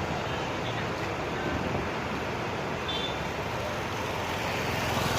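Steady road traffic noise: vehicle engines and tyres running by, with no horn melody sounding.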